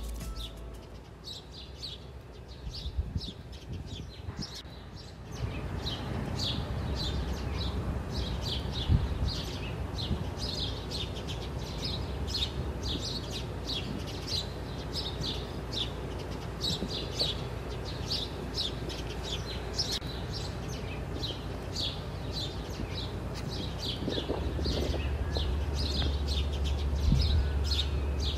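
Small birds chirping over and over, a few short chirps a second, with a steady low rumble of wind on the microphone; both get louder about five seconds in.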